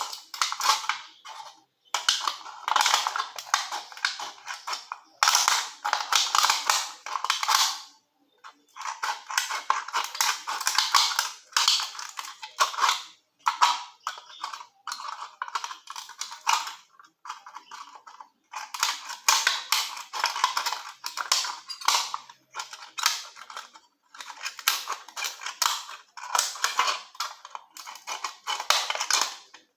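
Scissors snipping through the thin aluminium wall of a beer can, cutting it into strips. The cuts come as runs of rapid crisp snips lasting a second or two, with short pauses between them.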